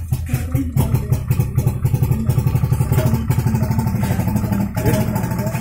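Daihatsu Hijet engine running loud through two Yamaha F1ZR motorcycle mufflers, with a rapid, even exhaust beat.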